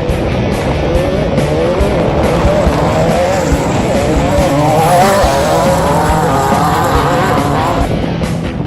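A 1600-class desert race buggy's engine running hard, its pitch wavering up and down as the revs change, over background music.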